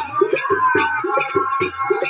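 Music: a Telugu devotional folk song for the goddess, sung over a quick, even drum beat with jingling metal percussion.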